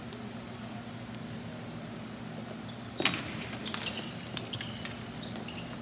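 Ball hockey play. Short sneaker squeaks sound over a steady low hum, then a sharp crack about three seconds in, from a stick striking the ball or the ball hitting the boards. A quick run of stick-and-ball clacks and more squeaks follows.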